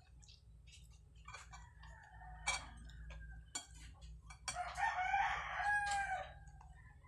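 A rooster crowing, one long crow lasting about a second and a half from about four and a half seconds in, the loudest sound here. A few sharp clicks come before it.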